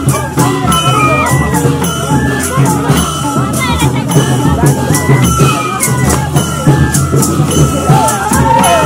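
Traditional Nepali processional band playing: a two-headed barrel drum and clashing hand cymbals keep a steady beat under a flute melody.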